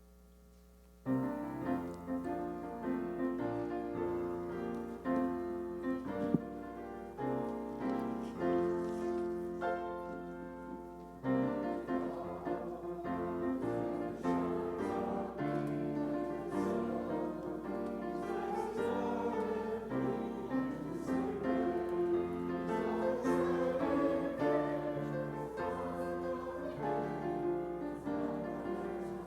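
Piano playing a slow, hymn-like piece. It starts about a second in and breaks off briefly near the middle before going on.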